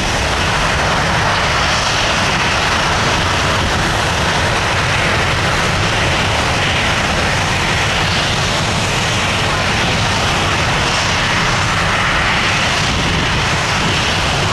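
Boeing 737 jet engines at takeoff thrust: a loud, steady roar of jet noise as the airliner rolls down the runway and lifts off.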